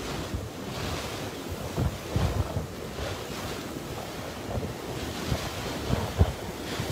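Tropical-cyclone wind blowing hard and buffeting the microphone, a steady rush broken by irregular low thumps, with a sharp gust about six seconds in.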